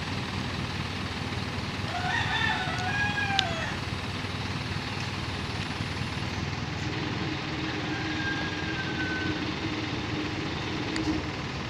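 Steady low running of the boom truck's engine, which powers the crane, with a rooster crowing once about two seconds in. A long, steady low whine runs through the second half.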